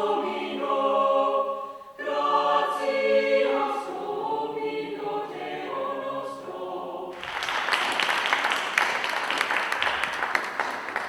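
Mixed SATB high school choir singing in parts, with a brief break about two seconds in. The singing ends about seven seconds in, followed by an audience applauding.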